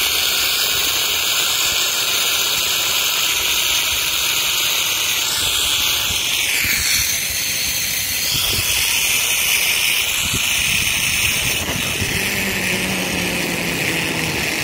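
Zipline trolley pulleys rolling along the steel cable: a loud, steady high whirring hiss that dips in pitch a little past halfway and then steadies.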